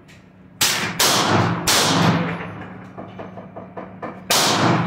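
Four gunshots: three in quick succession, about half a second apart, and a fourth near the end. Each has a ringing echo trailing after it.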